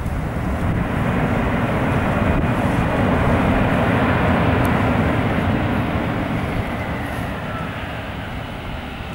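Airbus A319 airliner's jet engines passing by, the noise swelling over the first few seconds, peaking in the middle and fading toward the end.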